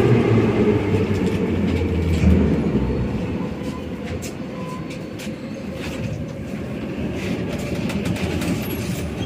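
Metro train slowing to a stop at a station, heard from inside the car: the motor whine falls in pitch and fades, leaving a rumble with scattered clicks and a couple of brief squeaks as it halts.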